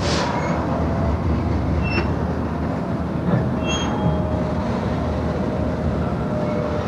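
Alco Century diesel locomotive moving slowly with freight cars: a steady low engine rumble over steel wheels rolling on rail, with a couple of brief high squeals about two seconds in and again near four seconds.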